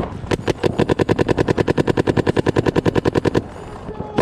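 Paintball marker firing a rapid, even stream of shots, about ten a second, for roughly three seconds. A few more shots follow just before the end after a brief pause.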